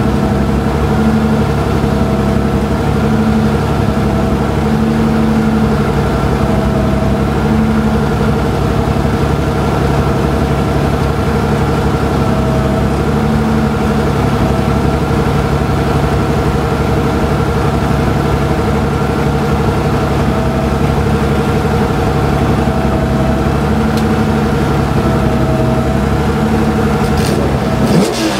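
Turbocharged BMW E46 M3's straight-six engine idling steadily, heard from inside the stripped race-car cabin. Near the end there are a couple of sharp knocks and the revs begin to rise.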